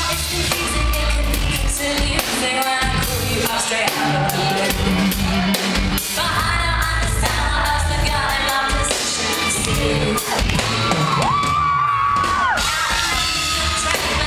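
A woman singing live pop with a full band, drums and keyboards, through a concert PA. She holds one long note about three-quarters of the way through.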